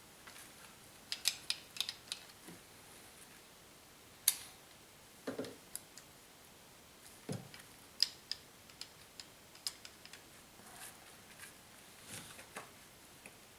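Irregular clicks, clinks and a few dull knocks of hand tools and car suspension parts being handled during a front-end rebuild, with a couple of sharper metallic clinks about 4 and 8 seconds in.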